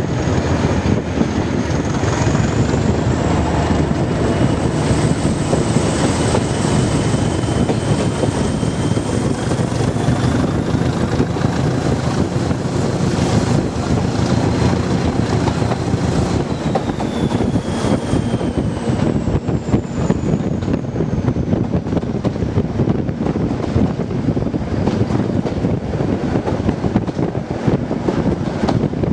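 Class 207 'Thumper' diesel-electric multiple unit running along the line, its English Electric diesel engine and wheels giving a steady heavy rumble. A whine rises in pitch over the first dozen or so seconds, then falls away about two thirds of the way through. Wind buffets the microphone.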